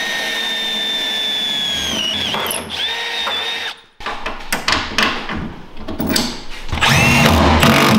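Cordless drill running under load as a 5/16-inch bit bores through a boat transom: a steady motor whine that dips in pitch twice as the bit bites, cutting off about four seconds in. Then clicks and knocks of a bolt being fitted by hand, growing louder and busier near the end.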